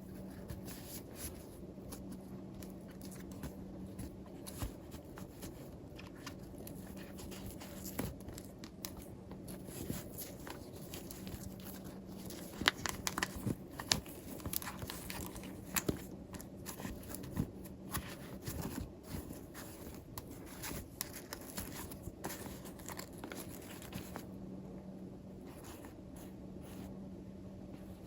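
Plastic toy packaging being handled, crinkled and torn open by hand: scattered rustles and small clicks, busiest in the middle, over a faint steady hum.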